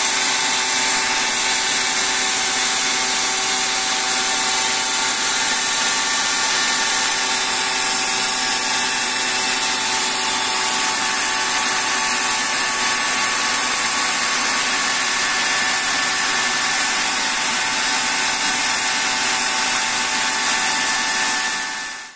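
Micro turbojet engine running at a steady speed: a loud, even rushing roar with several steady whining tones. It fades out quickly at the very end.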